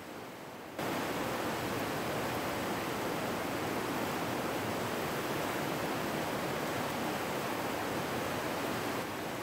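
Steady rushing noise of a river running high in flood through churning rapids. It jumps abruptly louder about a second in and drops back slightly near the end.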